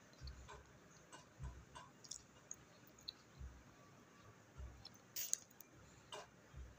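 Faint handling sounds of cloth being laid out and smoothed on a worktable: soft low knocks and small rustles at irregular moments, with a sharper rustle about five seconds in.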